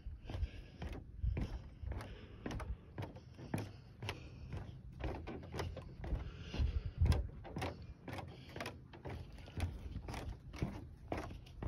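Footsteps on the wooden planks of an elevated boardwalk, knocking at a steady walking pace of about two to three steps a second.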